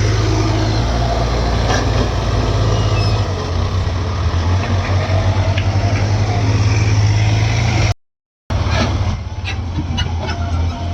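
JCB 3DX backhoe loader's diesel engine running steadily with a low, pulsing note. It cuts out for about half a second some eight seconds in, then comes back with a few sharp knocks.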